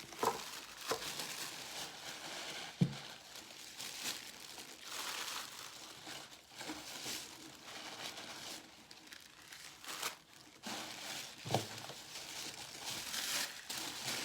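Paper packaging crinkling and rustling as items are pulled out of a subscription box, with a couple of knocks, the sharpest about three seconds in.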